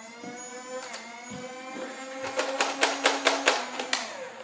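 Nerf N-Strike Modulus blaster's battery-driven flywheel motors whining as they spin up, rising in pitch. About two seconds in comes a rapid run of about nine sharp clicks, from the trigger being pulled again and again, over a steady motor hum.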